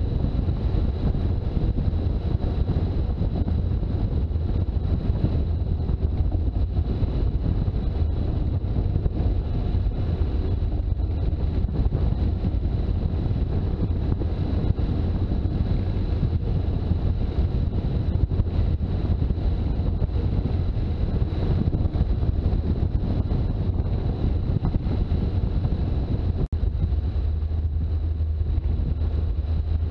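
Toyota HJ61 Land Cruiser with its 12H-T turbo-diesel straight-six, driving on the road: a steady low engine and road rumble, with wind buffeting the microphone.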